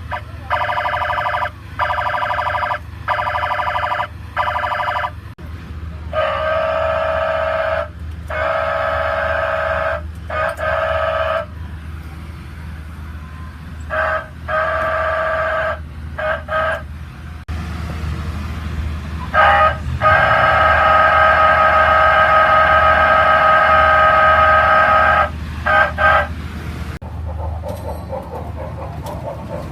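A loud electric horn at a funfair sounding at one steady pitch, first in a run of short blasts, then in longer ones, the longest held about five seconds just past the middle. A steady low hum runs underneath.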